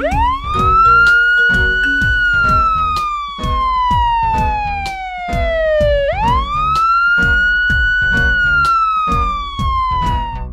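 A siren wailing twice: each wail rises quickly, holds briefly, then falls slowly, with the second starting about six seconds in. It sounds over background music with a steady beat.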